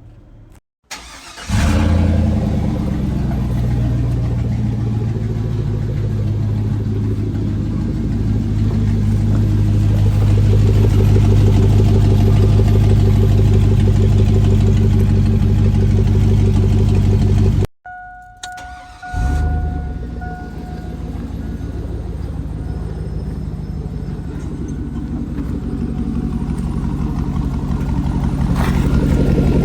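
Chevrolet Silverado's 4.8-litre V8 starting about a second and a half in and then running steadily. The engine sound cuts off abruptly about 18 seconds in, a brief steady tone sounds, and the engine returns a second later, growing slowly louder toward the end.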